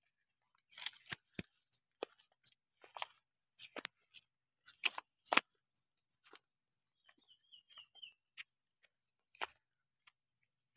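Footsteps in sandals crunching over loose stones and gravel, irregular steps that are most frequent in the first half and thin out later.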